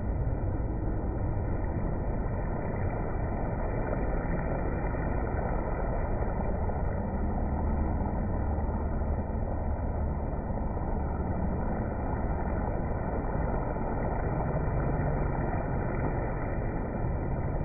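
Chicken wings frying in hot shortening in a cast-iron skillet: a steady sizzle over a low, even rumble.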